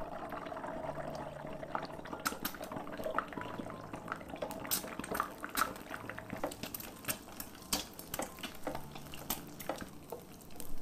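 An egg frying in hot oil in a nonstick pan: steady sizzling with frequent sharp pops and crackles, growing busier after the first couple of seconds as the white blisters and the edges crisp.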